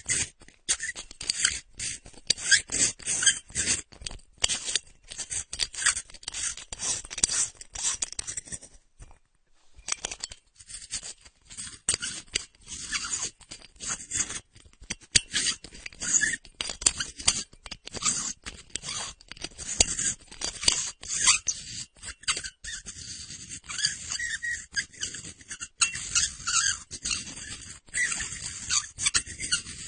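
Light bulb's metal base being screwed and unscrewed in a porcelain socket, making rapid, dense metallic squeaks and scrapes, with a short pause about nine seconds in.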